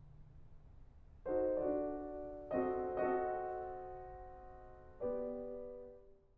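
Soft background piano music: chords struck about a second in, again at about two and a half seconds and at five seconds, each ringing on and fading.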